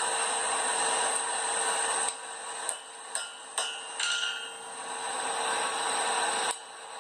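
Steady rushing of a blacksmith's forge blower, with four sharp metal taps between about two and a half and four seconds in, two of them ringing on briefly. The rushing cuts off suddenly near the end.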